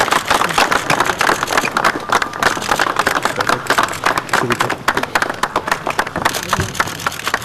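A crowd applauding, many hands clapping densely, thinning out near the end.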